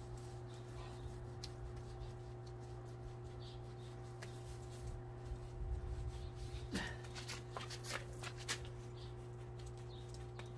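A steady electrical hum with scattered light clicks and rustling, busier for a few seconds in the middle, and a short falling squeak about seven seconds in.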